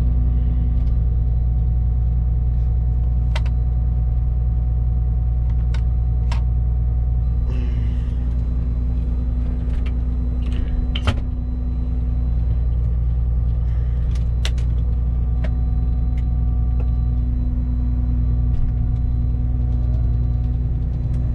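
Claas Lexion 670 combine harvester running steadily, its engine drone heard from the driver's position, with a few scattered light clicks and knocks.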